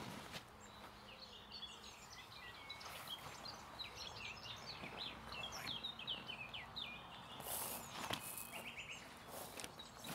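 Small songbirds twittering in quick, varied chirps and trills, with a few brief rustles of a fabric weigh sling being opened and handled.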